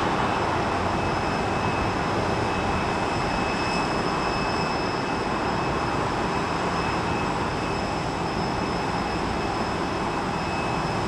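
Jet airliner engines running steadily: an even rush of noise with a high whine held on a few steady tones.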